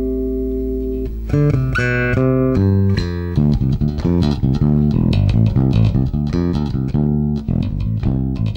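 Music Man StingRay 4 electric bass played through a Markbass Little Mark Tube 800 bass head with a round tone and the gain set low. A held note dies away, then a bassline of quick plucked notes starts about a second in.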